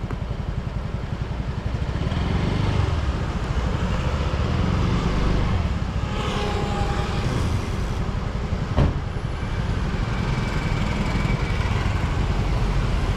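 Yamaha RayZR 125 scooter being ridden, its 125 cc single-cylinder engine running steadily under road and wind noise, with one sharp knock about nine seconds in. No front-panel rattle is heard: the panel noise fixed at the service centre has gone.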